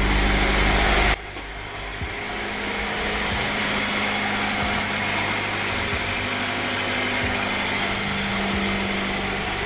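1997 Honda CR-V's four-cylinder engine idling steadily on fresh spark plugs and plug wires fitted to cure a misfire, running without shaking so far. The sound drops abruptly about a second in, then carries on as a steady hum.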